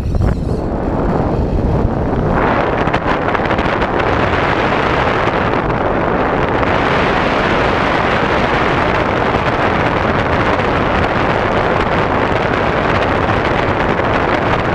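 Airflow buffeting the onboard camera microphone of an FPV RC plane in flight, a loud steady wind rush. It grows stronger and hissier about two seconds in, as the plane noses down.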